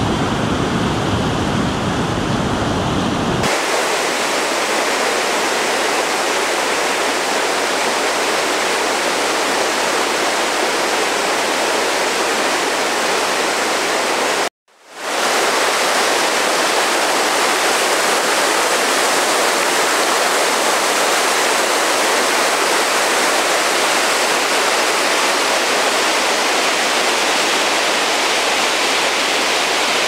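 Rushing floodwater of a rain-swollen creek pouring over limestone falls and rapids, a loud, steady rush of water. Wind rumbles on the microphone for the first few seconds, and the sound breaks off for an instant about halfway through.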